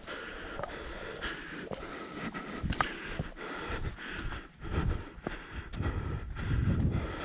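A hiker's footsteps on a mountain trail, irregular scuffs and clicks, with panting breath and a low rumble of wind on the microphone that grows louder near the end.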